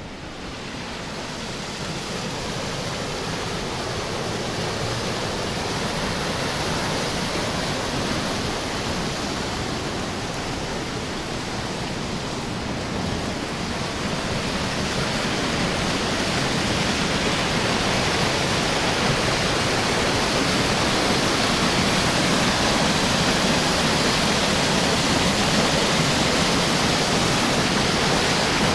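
Water rushing through a river sluice, a steady even roar that grows gradually louder.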